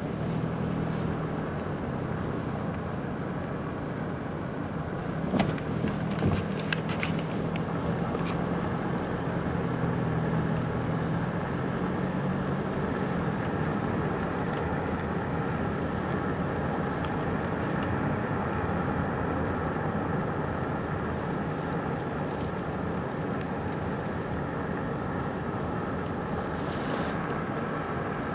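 A car running steadily at low speed, engine hum and road noise, with the hum fading about halfway through. A few light clicks come around six seconds in.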